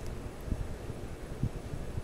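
Vintage Sears Kenmore 52-inch five-blade ceiling fan running at medium-high speed: an uneven, low whooshing rumble of the blades moving air. Kind of sounds like small helicopter blades.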